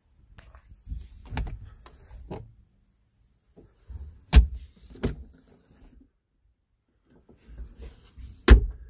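Hard plastic clunks and knocks from a pickup's center console as its lid is opened and the storage tray inside is lifted out, with two sharper thunks, one midway and one near the end.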